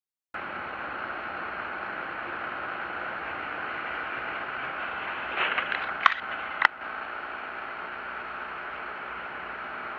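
Steady hiss of a car driving on a wet road, heard from inside the cabin through a dashcam, starting abruptly a moment in. A few sharp clicks and a knock come about five and a half to seven seconds in.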